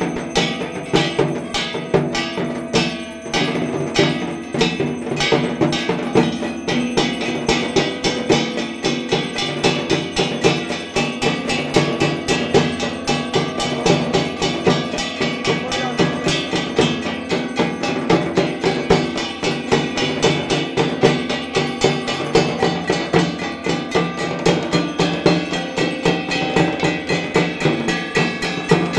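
Dhak drums beaten in a fast, unbroken rhythm, with kansor bell-metal gongs clanging over them: the traditional accompaniment to Durga Puja arati.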